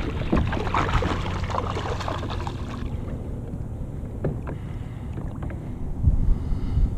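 Wind on the microphone and water lapping against a fishing kayak's hull, louder for the first few seconds, with a few light knocks near the end.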